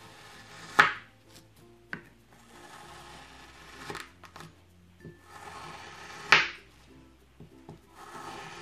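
Kitchen knife slicing through a molded block of kinetic sand: slow, gritty scraping cuts, each ending in a sharp crisp stroke, the loudest about a second in and past six seconds. Soft background music plays beneath.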